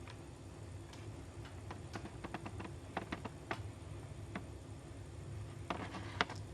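Irregular sharp clicks and ticks, a cluster of them in the middle and a few more near the end, over a low steady rumble.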